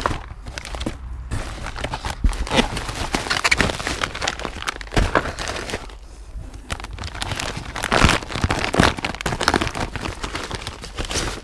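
Plastic air-pillow packing and a cardboard box crinkling and rustling in irregular crackles as a hand rummages through a parcel, with a brief lull about six seconds in.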